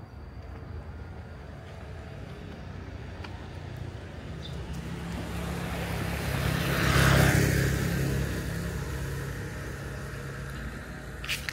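A motor vehicle drives past with a low engine hum, growing louder to a peak about seven seconds in and then fading away.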